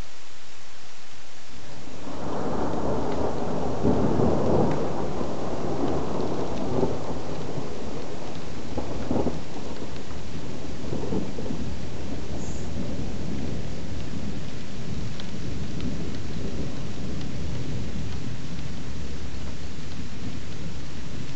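Thunder: a deep rumble rolls in about two seconds in, loudest a couple of seconds later with a few sharper cracks, then rumbles on and slowly fades.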